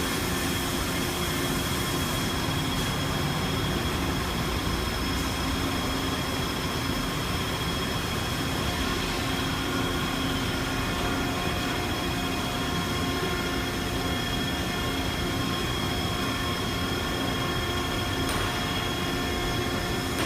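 Steady industrial machinery noise: a constant high-pitched whine over a low hum and an even rushing noise, unchanging throughout.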